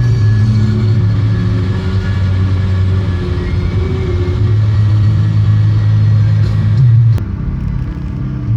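Volkswagen up! TSI's 1.0-litre three-cylinder turbo engine running with a steady low hum. The hum shifts a little in pitch and drops slightly about seven seconds in.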